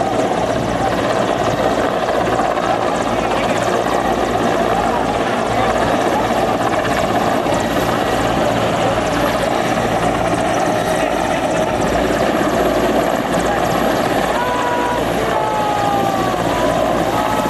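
Helicopter close by, its rotor and turbine running steadily and loudly with a pulsing low beat from the blades.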